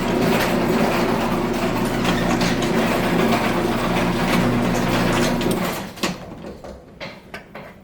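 Chamberlain garage door opener's electric motor running steadily as it drives the door, then stopping about six seconds in, followed by a few light clicks.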